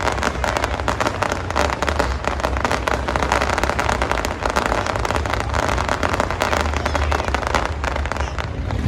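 Aerial fireworks going off in a dense, continuous crackle of rapid pops.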